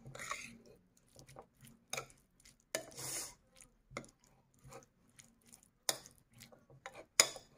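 A plastic spoon stirring yogurt-coated dried sangri pods in a bowl, making irregular scrapes and clicks against the bowl. There is a longer scrape about three seconds in and a sharper knock near the end.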